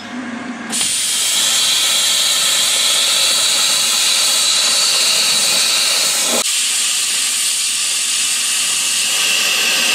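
Plasma cutter cutting through a steel engine bracket: a loud, steady hiss of the arc and air that starts about a second in and breaks off briefly a little past halfway.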